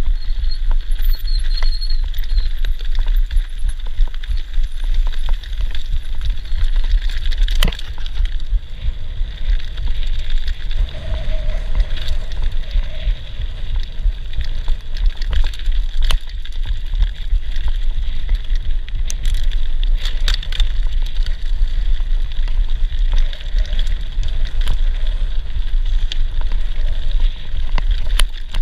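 Mountain bike riding fast over a gravel dirt track: tyres crunching on loose stones, with scattered clicks and rattles from the bike over bumps. Wind buffets the bike-mounted camera's microphone as a heavy low rumble.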